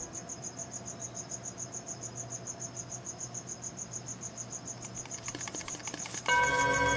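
Cricket chirping in a fast, even rhythm of high pulses, as night-time ambience. A few light ticks come in near the end, then eerie music starts loudly about six seconds in.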